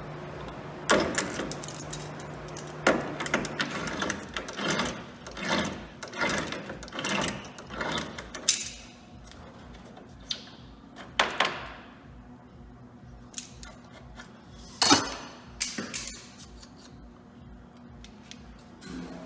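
Adjustable wrench clinking and scraping on a rusted stud and nut as it is turned and refitted, a string of irregular metal clicks and knocks that thin out about halfway through.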